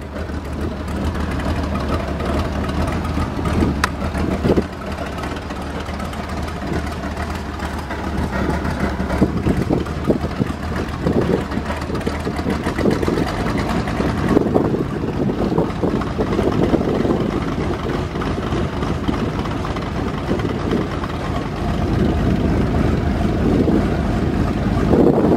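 Engine of a 1978 RAM AC Cobra continuation car idling steadily, heard from the open cockpit.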